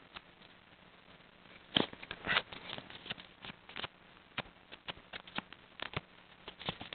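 Small sheet of paper handled close to the microphone: irregular soft rustles, crinkles and taps, the loudest pair about two seconds in.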